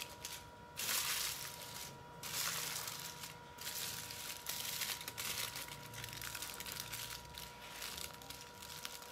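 Aluminium foil crinkling as it is wrapped and pressed around the bottom of a coconut, in irregular rustling bouts with a few short pauses.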